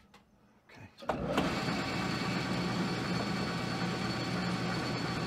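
Small metal lathe switched on about a second in: the motor and spindle with its four-jaw chuck spin up quickly and then run steadily, with a hum and a thin high whine.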